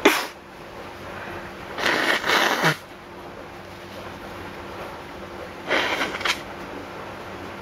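A person sneezes once sharply, then gives two longer, breathy sniffs about two and six seconds later.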